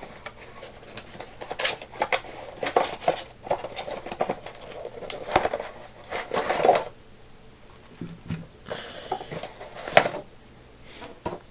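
Cardboard retail box being opened and handled: irregular rustling and scraping of the flaps, with small knocks and clicks, and one sharp, louder snap about ten seconds in.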